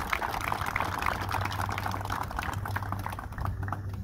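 Audience applauding: dense, fast clapping that thins out near the end.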